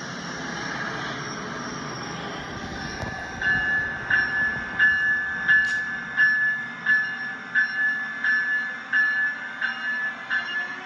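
Train running with a steady rushing noise. About three and a half seconds in, a train bell starts ringing at a steady pace, roughly three strokes every two seconds, each ring sharp at first and then fading.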